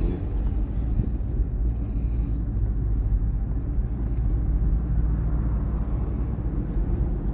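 Steady low rumble of car engines running, with no revving.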